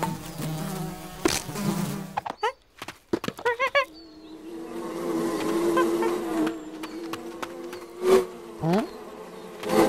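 Cartoon sound effects of a swarm of bees buzzing loudly. A single knock comes just over a second in, quick wavering whistle-like glides follow around three seconds in, and short loud outbursts come near the end.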